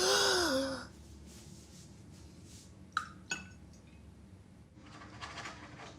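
A short sighing, sobbing voice, then two light clinks of glass about three seconds in, the first with a brief ring.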